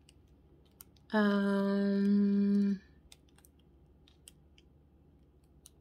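A woman humming one long, steady closed-mouth "hmm" for about a second and a half, starting about a second in: a pondering hum. Faint scattered clicks are heard around it.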